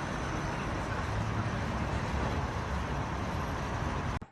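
Steady rumbling noise with no clear pitch, cutting off abruptly near the end.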